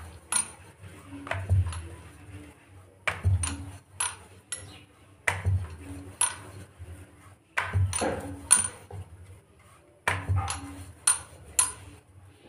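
Wooden rolling pin rolling out a methi paratha on a round wooden board: sharp wooden clacks with dull knocks, coming in irregular bunches every second or two as the pin is pushed back and forth.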